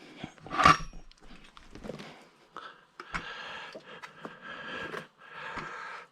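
Metal parts being worked off an axle: a sharp metal clank about a second in, then longer stretches of metal scraping as the nut and sprocket hub are taken off.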